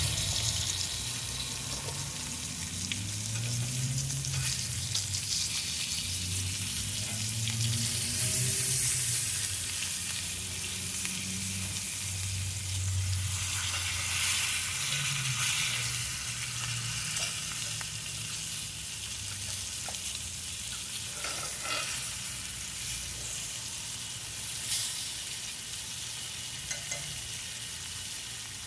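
Beef neck bones sizzling steadily as they fry in a pan, with a few sharp clicks in the last third.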